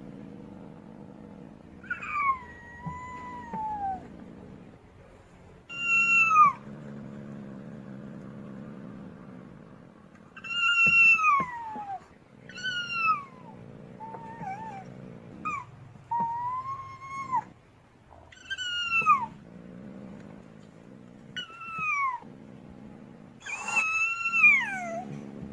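Female cat wailing: about a dozen drawn-out meows, most sliding down in pitch, repeated every couple of seconds over a low steady rumble.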